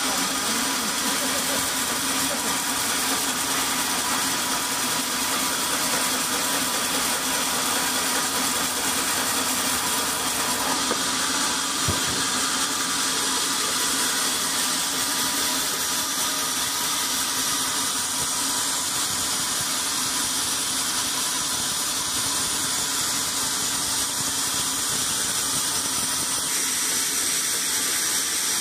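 Band sawmill running, a steady mechanical drone with a high whine that holds unchanged throughout.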